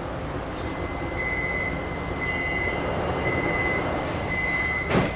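Metro train door-closing warning beeps, a steady high tone sounding about once a second, as the car doors slide shut, over the steady hum of the train. A sharp knock near the end.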